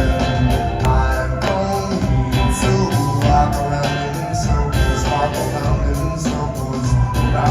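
Live rock band playing a song with a steady drum beat, bass and guitar.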